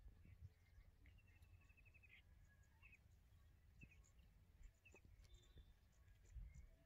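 Near silence with faint bird calls: a rapid trill of repeated notes about a second in, then several brief high chirps, over a faint low rumble.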